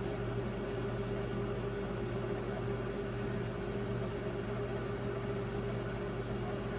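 Samsung-built 1996 Brastemp Clean BMP31 microwave oven running its auto reheat cycle: a steady electrical hum with an even rush of fan noise.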